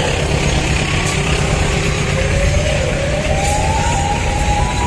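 Freight train of open wagons rolling past with a steady low rumble of wheels on rail. Over it, a siren wail starts about half a second in and glides slowly upward in pitch.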